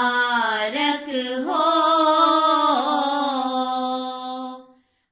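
Girls' voices singing the closing phrase of an Urdu nazm in long held notes that shift pitch a few times, fading out near the end.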